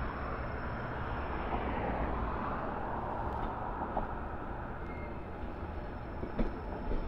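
Red CP suburban electric multiple unit approaching along the track: a steady rumble of wheels and motors, with a few short clicks near the end.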